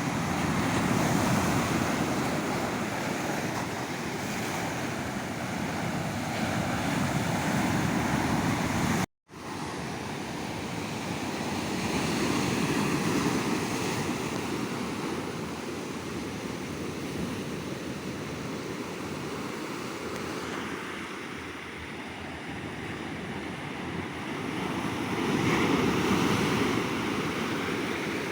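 Sea waves breaking and washing up on a sandy beach, the surf swelling and ebbing in several slow surges. The sound cuts out for an instant about nine seconds in.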